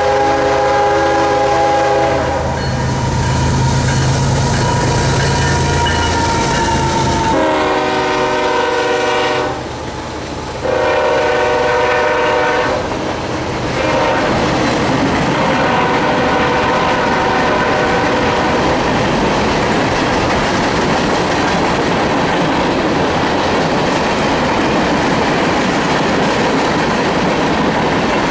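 A GE ES44AH diesel locomotive's Nathan K5HLL five-chime air horn sounds several blasts as the train passes, the last ending about halfway through. After that, freight cars roll by with a steady clickety-clack of wheels on rail joints.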